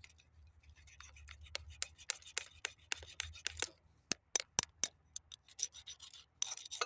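Metal file scraping corrosion off a car battery cable terminal in quick, repeated strokes, with a few louder, separate strokes about four to five seconds in.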